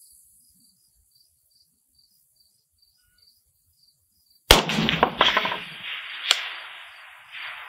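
A single shot from a suppressed Galil DMR rifle in 6.5 Creedmoor about four and a half seconds in, its report rolling away in a long fading echo, with a second sharp crack about two seconds after the shot. Crickets chirp faintly in a quick, even rhythm beneath.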